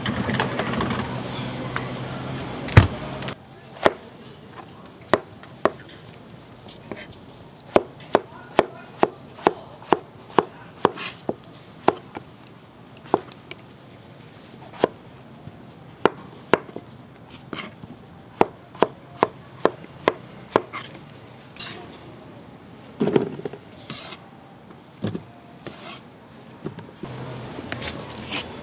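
A steady hum for the first three seconds, then a knife cutting king oyster mushrooms on a plastic cutting board: sharp knocks, about one to two a second, with a few scattered knocks later.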